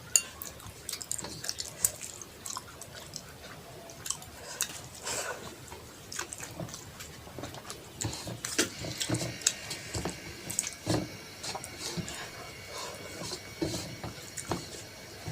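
Close-miked chewing and wet mouth smacks of a person eating rice and curry: irregular clicks and smacks.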